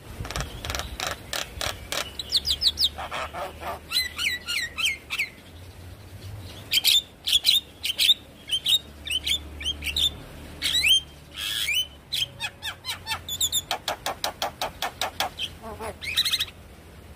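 Javan myna singing: a long varied run of rapid chattering clicks mixed with short rising whistles.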